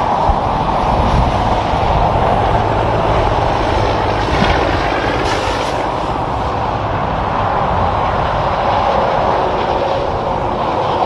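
Highway traffic of semi-trucks and cars passing at speed: a steady tyre roar with the low drone of truck engines, heaviest in the first few seconds.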